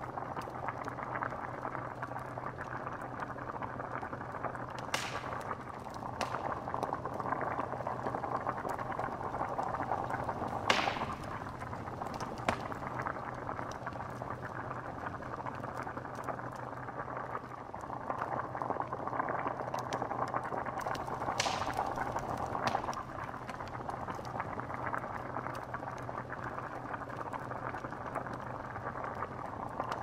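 Bubbling cauldron sound effect: a pot of liquid boiling hard with continuous dense bubbling, broken by a handful of sharper pops, the loudest about a third of the way in. A faint steady low hum runs underneath.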